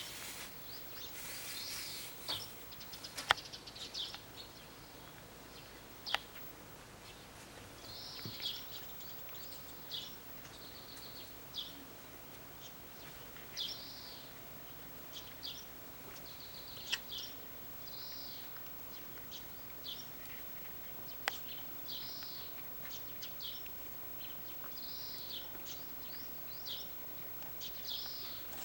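A domestic cat grooming after a meal, licking its paw to wash its face: short rasping licks in clusters every second or two, with a few sharp clicks.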